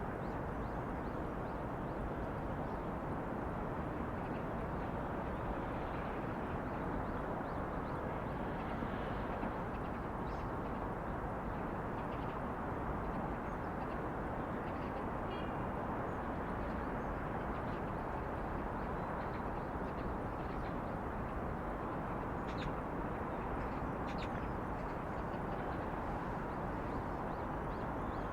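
Steady city background noise: a constant wash of distant traffic, with a few faint short chirps or ticks now and then.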